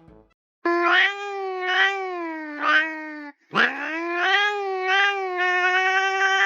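A cat giving two long, drawn-out yowls. The first wavers up and down three times. The second slides up in pitch at the start and is then held steady.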